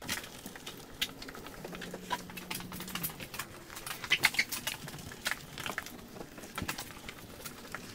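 Wash mitt being worked slowly over a soapy car body by hand, giving irregular light clicks, ticks and wet rubbing noises.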